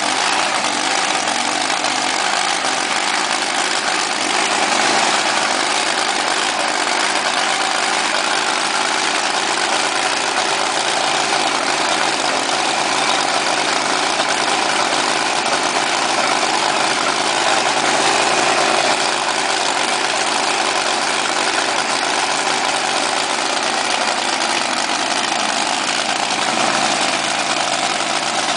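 Drag boat engine idling steadily, a loud, even running with no revving.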